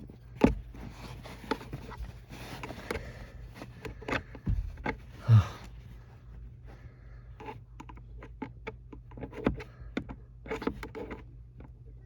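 Irregular clicks, knocks and scrapes of hands working screws and plastic parts, putting the van's AC blower fan housing back together. The sharpest knock comes about half a second in.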